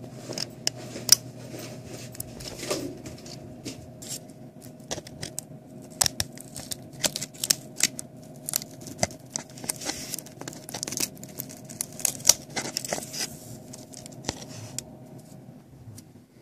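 Irregular light clicks and taps, a few of them sharper, from fingers and metal tweezers handling ribbon cables and connectors inside an opened original iPad, over a faint steady hum that stops shortly before the end.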